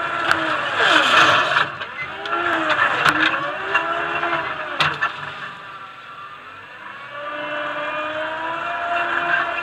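TCM 706 compact loader's engine and hydraulics working under load, the pitch dipping and rising several times as the bucket is pushed into a pile of soil and filled. A burst of scraping about a second in and a few sharp knocks, then the engine settles to a steadier, higher pitch near the end.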